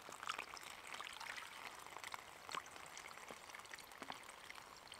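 Water poured in a thin stream from a stainless steel bottle into the narrow spout of a soft plastic water pouch: a faint, steady trickle with small splashes.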